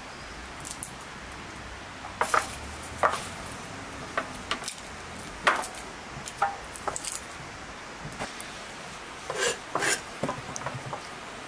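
Scattered light knocks and clinks of food and kitchen items being handled on a wooden table, a dozen or so separate taps with no steady rhythm.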